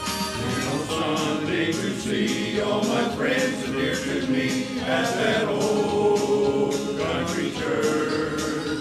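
Choir singing a gospel song over instrumental accompaniment with a steady beat.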